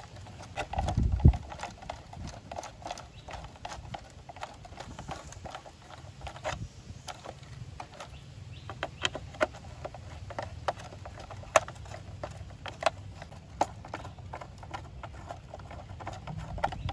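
Small screwdriver driving screws into a plastic toy ambulance chassis, with irregular sharp clicks and taps of the tool and the handled plastic parts over a faint low rumble; a louder handling knock about a second in.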